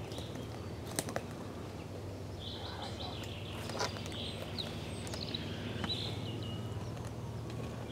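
Wild boar foraging on a stony forest floor: scattered clicks, crunches and rustles, with a few short high chirping calls in the middle, over a steady low hum.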